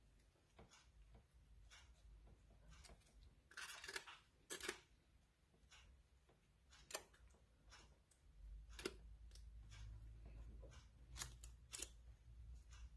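Very faint scattered clicks and rustles from a gloved hand spreading tomato sauce over a raw meatloaf in a metal loaf pan, with a brief rustle about four seconds in.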